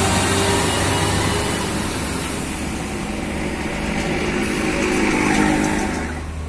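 Truck engine running, growing louder to a peak about five seconds in, then falling away sharply near the end.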